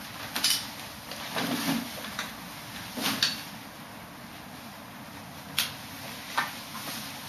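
A few short, sharp clacks and knocks of a bicycle cargo trailer's metal frame and hitch being handled at the back of a bike.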